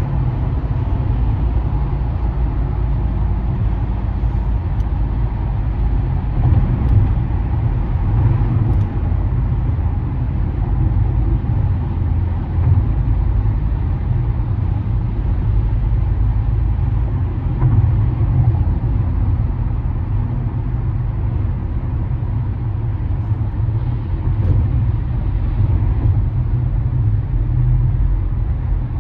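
Steady low road rumble of a car driving at freeway speed, heard from inside the car.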